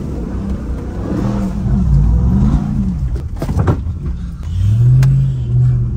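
Supercharged V8 of a Ram TRX pickup heard from inside the cab while driving on a rough forest track, its revs rising and falling and then rising again and holding near the end, over a low rumble. A few knocks come about halfway through.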